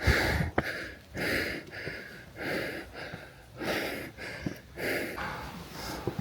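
Heavy breathing from exertion on a steep climb, close to the microphone: a hard breath about every second and a quarter, with a couple of light knocks in between.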